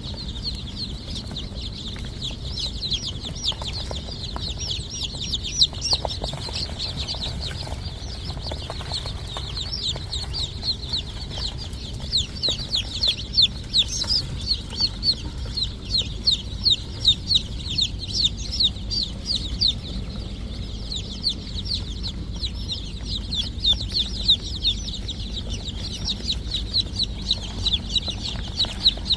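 Chickens peeping: a dense, unbroken stream of short, high cheeps that slide down in pitch, louder and more spaced in the second half, over a low steady rumble.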